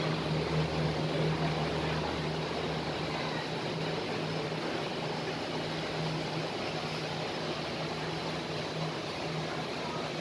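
Steady background drone: a constant low mechanical hum under an even hiss, like ventilation machinery, with a deeper hum that fades out about three seconds in.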